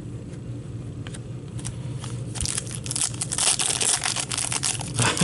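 Foil wrapper of a hockey card pack crinkling and tearing as it is opened by hand. The crackling grows denser and louder about two seconds in.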